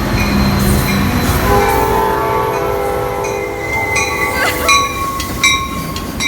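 Metra commuter train's air horn sounding a chord of several tones, starting about a second and a half in and lasting about three seconds, over the low rumble of a train in the station.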